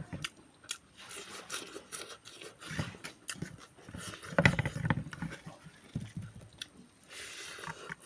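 A person chewing and biting food close to the microphone, with many short mouth clicks; the loudest bite comes about four and a half seconds in.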